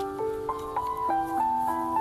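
Background music: a gentle melodic tune of clear, sustained notes moving in small steps, several notes sounding together.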